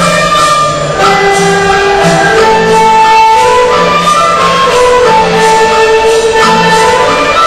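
Background music: a melody of held notes over a steady low accompaniment.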